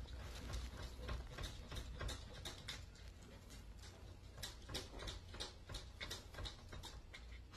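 A corgi's claws tapping and scratching on a glass sliding door as it paws to be let in: faint, irregular clicks, a few a second.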